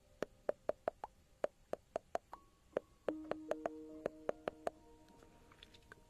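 Ear-cleaning crackle: irregular sharp clicks, about three a second, over soft held music notes.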